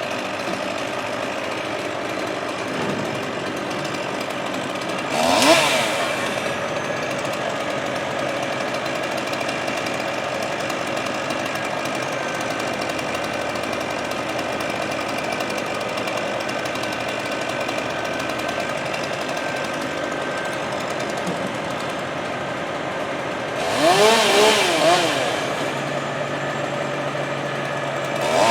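An engine drones steadily throughout, while a chainsaw is revved briefly, rising and falling in pitch, about five seconds in and again for a couple of seconds near the end.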